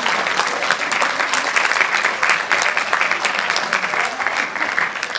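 Theatre audience applauding, a dense steady clapping.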